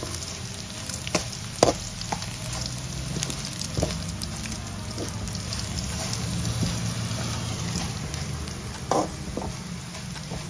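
Onion, urad dal, mustard seeds and curry leaves frying in coconut oil in a metal kadai for a tempering, as the dal turns golden. A metal spoon stirs the pan and scrapes or taps it a few times, over a steady low hum.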